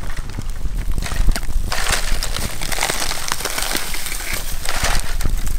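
Leaves rustling and small crackles as a leaf-wrapped bundle is lifted out of a smouldering earth pit, with two short louder rustles about two and five seconds in, over a steady low rumble.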